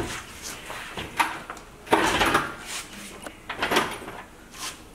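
Irregular clunks, knocks and scrapes as an engine hanging from a shop crane's chain is shoved and shifted around in the engine bay, the longest scrape about two seconds in.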